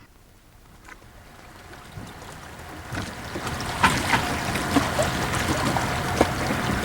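Ambience aboard a boat fading in: an even wash of water noise with a low steady hum, a few light knocks and taps.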